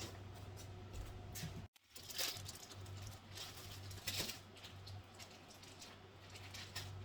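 Faint rustling and soft knocks of food containers and packaging being handled and taken out of a refrigerator, over a steady low hum.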